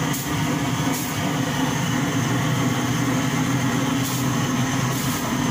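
Chainsaw engine running steadily at a constant pitch.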